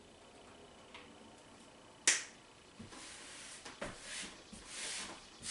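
Small plastic glitter container handled over a bowl: one sharp snap a little after two seconds, like a cap clicking open, then a few seconds of shaking and rustling with light taps and clicks as glitter is shaken out.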